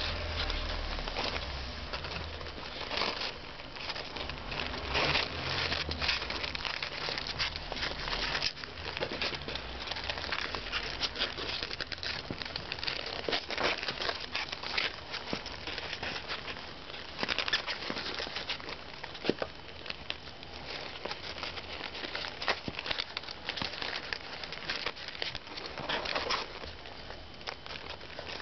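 Baby Gambian pouched rats scrabbling on the cardboard floor of a small box while a hand moves among them: a dense, irregular run of scratching, rustling and small clicks.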